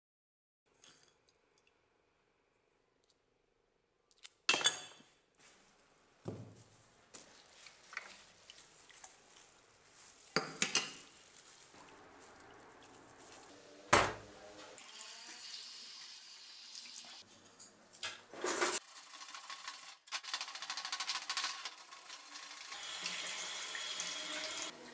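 After a few silent seconds, metal blowtorch parts knock and clink against a pot and slosh in rust-remover liquid, with several sharp clanks. Near the end a tap runs over the parts in a stainless-steel sink.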